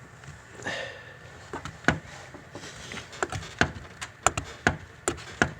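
A series of sharp, irregular clicks and knocks, about seven in the last four seconds, after a short rustle: parts being handled and fitted back in place in an engine bay during reassembly.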